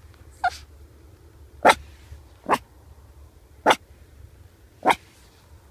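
Pekingese dog barking: five short, sharp barks, roughly one a second.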